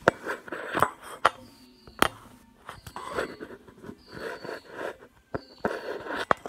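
Handheld camera being handled and moved about at close range: several sharp knocks and muffled rustling.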